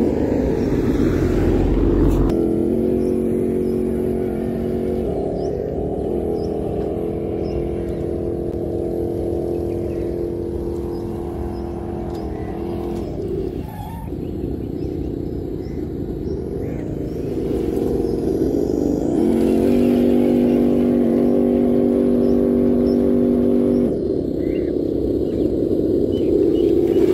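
Traxxas TRX-4 Land Rover Defender RC crawler's electric motor and gearbox whining as it crawls, the whine holding a steady pitch and then shifting up or down a few times as the throttle changes, over a low rumble.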